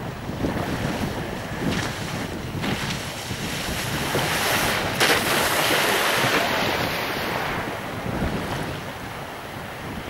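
Sea wave breaking onto the shore close by, with a sharp splash about five seconds in and a hiss of surf that swells and dies away by about eight seconds. Wind buffets the microphone throughout.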